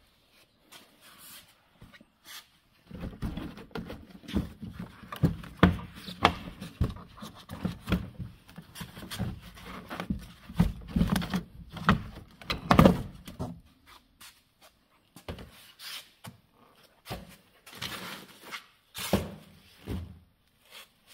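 Irregular knocks, thuds and scraping as the interior trim panel is prised and pulled off a car door. The handling noise is dense for the first half or so and then thins out to scattered knocks.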